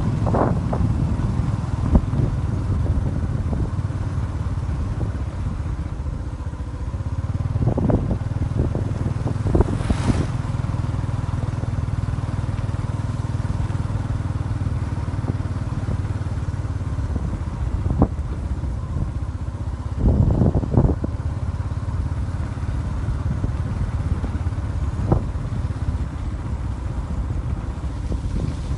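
Steady low engine rumble, with a few short knocks scattered through it.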